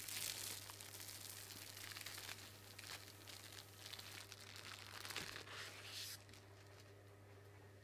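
Plastic cling film being peeled off a sheet of rolled-out tart dough: a faint crinkling and peeling that dies away after about six seconds.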